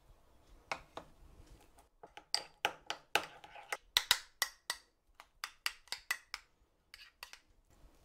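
Metal spoon stirring buttercream in a small ceramic bowl to mix in food colouring, clinking and scraping against the bowl in a quick, irregular run of clicks that is busiest in the middle.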